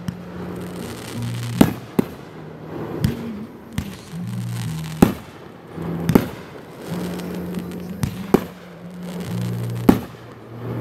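Fireworks aerial shells launching and bursting in about eight sharp bangs at uneven intervals. Music with sustained low notes plays underneath.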